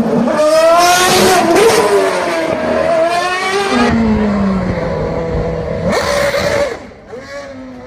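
Red Bull RB7 Formula 1 car's Renault V8 engine revving hard, its high note climbing and dropping several times as the revs rise and fall. Past halfway it settles to a lower, falling note, and near the end it drops away and grows quieter.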